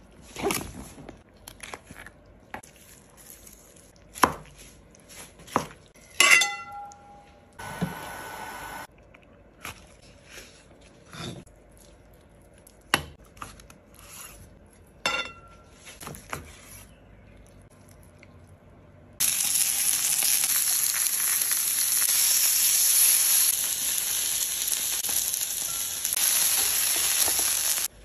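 Sharp cracks and clicks as a cooked spiny lobster's shell is pulled apart by hand, and a knife cuts on a wooden board. About two thirds of the way in, a loud steady sizzle of food frying in a hot pan starts, lasts about nine seconds, and cuts off suddenly.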